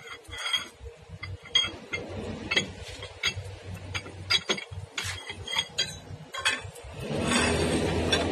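Irregular sharp metallic clinks and clicks of a long socket wrench and steel pipe extension working the wheel nuts of a forklift's front wheel. About seven seconds in, a steadier, louder noise comes in.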